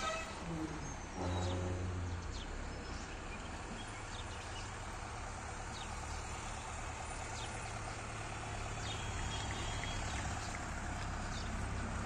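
Steady outdoor background rumble, with scattered faint high chirps and a short low hum about a second in.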